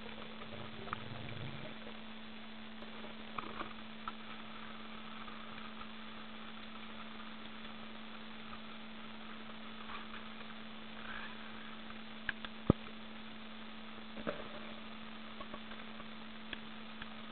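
Underwater sound: a steady low hum over a hiss, with scattered light clicks and knocks and one sharp, loud click about twelve and a half seconds in.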